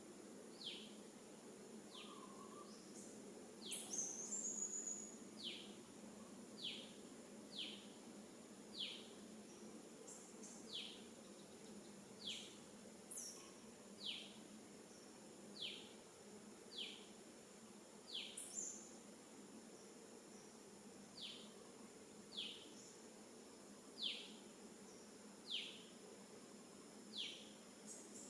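Faint bird calls: a short, sharply falling chirp repeated every second or two, with a few higher sweeping calls between, over a steady high insect drone.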